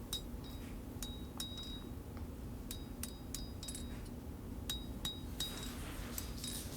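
Hammer striking hot steel over the horn of an anvil, light clinks at an uneven pace, each with a short metallic ring, as a finger well is forged into a knife handle.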